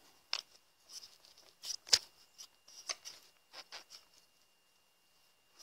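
Irregular small clicks, taps and rustles of parts and tools being handled on a workbench. The loudest is a sharp knock about two seconds in.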